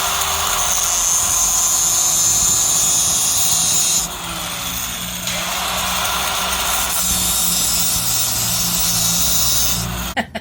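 Power cutting tool running under load, with a steady motor whine over a harsh grinding hiss, cutting a slot into a stuck part so that it can be forced loose. The pitch sags briefly about four seconds in, then recovers, and the tool stops abruptly just before the end.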